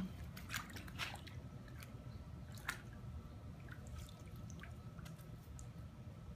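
Faint, scattered drips and small splashes of pool water around a wet puppy being dipped and held just above the surface.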